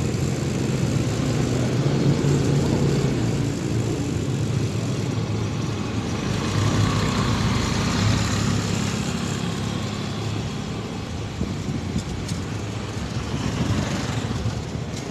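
Motorcycle engine running steadily at road speed, heard from the rider's own bike along with road and wind noise. Another motorcycle passes close alongside about halfway through, and again near the end.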